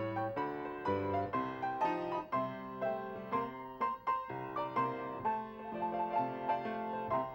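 Piano music: a steady run of struck chords and melody notes, several notes a second.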